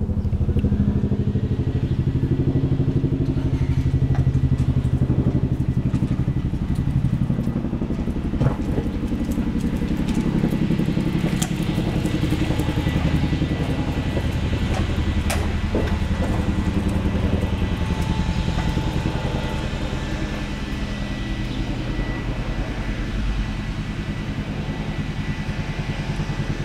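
Boeing CH-47 Chinook tandem-rotor helicopter flying overhead, its two rotors making a fast, steady beating that eases slightly in the last several seconds as it moves off.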